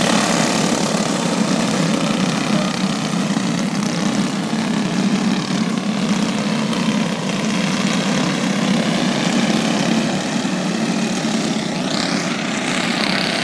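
Engines of a pack of alcohol-fuelled racing karts running together steadily on the track, with one engine's pitch rising near the end as it speeds up.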